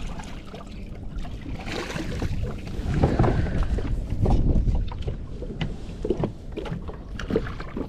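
Wind rumbling on the microphone with irregular knocks and rattles in a bass boat while a hooked bass is landed.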